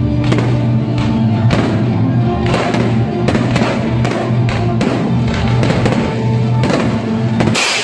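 Background music with held tones and a steady beat, with a short, loud hiss near the end.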